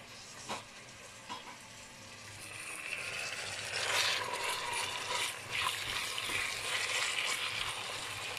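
Raw chicken breast strips frying in hot oil in a nonstick pan, stirred with a wooden spoon. A few light knocks in the first seconds, then the sizzle swells about three to four seconds in and carries on steadily.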